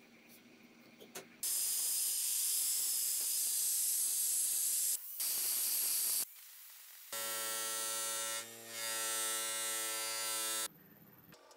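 Grinder disc abrading a cast resin block, giving a loud, even hiss for about five seconds. After a short pause, a bench-mounted wheel's electric motor runs with a steady pitched whine while the resin handle is shaped against it, cutting off suddenly near the end.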